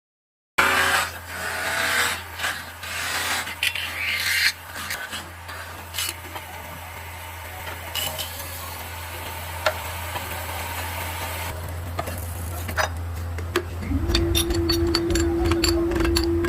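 Scraping and rubbing on aluminum kettle metal over a steady low machine hum. Near the end a steady higher-pitched hum starts, with quick clicks and taps.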